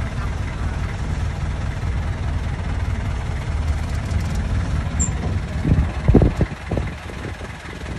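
Engine idling steadily, a low rumble. A few loud low thumps and bumps come about six seconds in.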